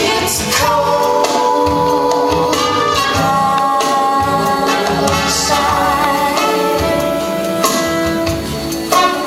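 Singing with instrumental accompaniment, in long held notes that step from one pitch to the next about every second.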